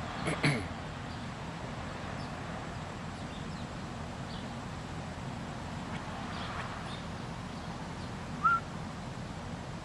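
Birds chirping faintly here and there over a steady low background hiss, with a short, louder rising chirp near the end. A brief rustle or knock comes just after the start.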